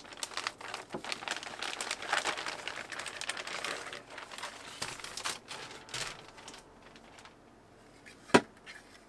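Toy packaging being handled during an unboxing: dense rustling and crinkling with many small clicks for about seven seconds, then quieter, then one sharp knock near the end.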